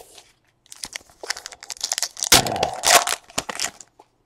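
Plastic foil wrapper crinkling and tearing in a string of crackly bursts, loudest in the middle, as a trading card pack is ripped open.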